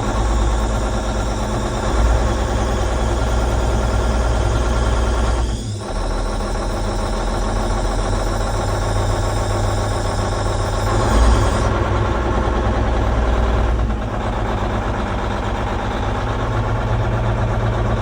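Cummins N14 diesel engine of a Versatile 2360 tractor running steadily, with its belts squeaking pretty good. The owner suspects an injector that is sticking or not working correctly. The higher sounds fall away about twelve seconds in.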